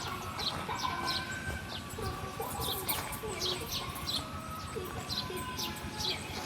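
Small birds chirping: short, high, falling chirps repeated about two to three times a second, with fainter lower calls underneath.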